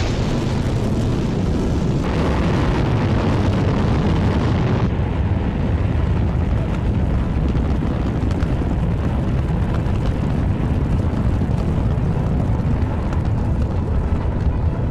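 Delta IV Heavy rocket launching: the three RS-68A engines' exhaust makes a loud, continuous rumble, heaviest in the low end, at ignition and liftoff. The upper hiss eases off about five seconds in.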